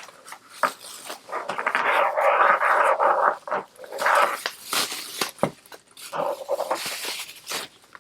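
Packaging rustling and crinkling as it is pulled open by hand, with irregular crackles and rubs.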